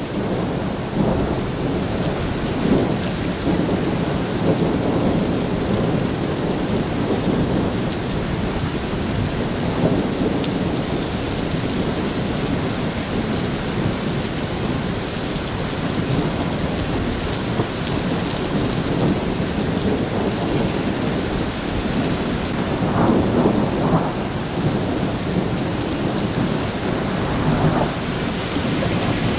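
Heavy rain pouring steadily in a supercell thunderstorm, with thunder rumbling beneath it. A stronger rumble comes about three-quarters of the way through.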